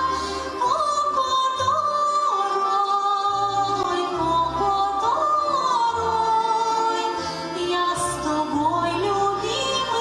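A woman singing a slow song in long held, gliding notes over instrumental accompaniment with a low bass line.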